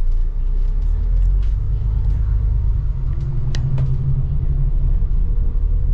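Low, steady rumble of a moving bus heard from inside: engine and road noise, with scattered light rattles and a sharper click about three and a half seconds in.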